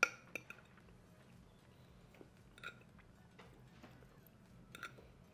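A metal fork tapping on a ceramic plate: a sharp clink right at the start, a second just after, one midway and one near the end, each ringing briefly.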